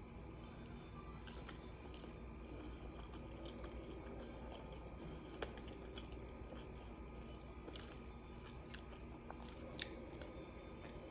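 Faint chewing and mouth sounds of a person eating, with scattered small clicks and two sharper clicks, one around the middle and one near the end.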